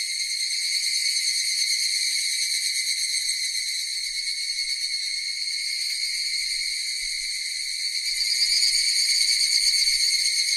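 Cicadas buzzing in a steady, continuous high-pitched drone that swells a little louder about eight seconds in.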